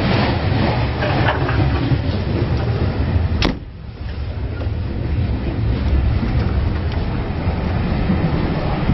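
Steam railway coach running along the line, heard from inside the carriage: a steady low rumble, with one sharp knock about three and a half seconds in, after which the rumble is briefly quieter.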